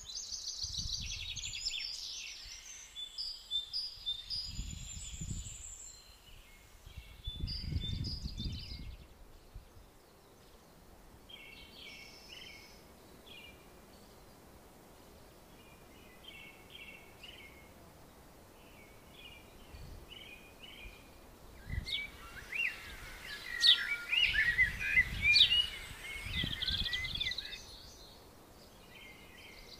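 Small birds singing in short chirping phrases, busiest and loudest in a flurry of rapid song about three quarters of the way through. A few brief low rumbles sit underneath.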